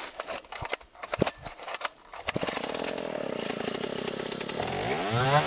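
A few knocks and clicks, then a chainsaw engine starts about two seconds in and runs steadily. Near the end it revs up in a rising whine and holds the higher speed.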